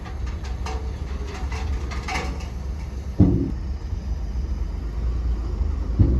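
Heavy diesel construction machinery running with a steady low rumble, with scattered metallic clanks and two louder clanks that ring briefly, about three seconds in and near the end.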